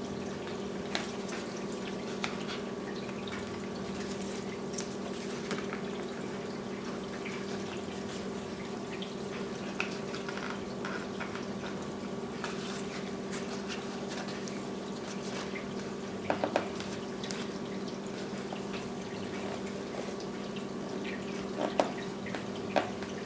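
Steady background hum holding a few fixed tones, under faint scattered crackles and light taps from a vinyl graphic being handled and pressed onto a plastic motocross shroud. A few sharper clicks come past the middle and again near the end.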